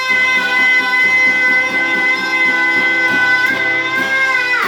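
A child singer holds one long high note over a strummed guitar accompaniment, the note dropping away near the end as the song closes.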